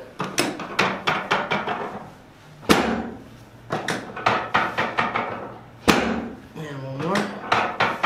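Chiropractic drop table: the drop piece gives way under a thrust with a loud, sharp clack, twice about three seconds apart. Between the clacks, lighter quick clicks come from the table's mechanism as it is reset.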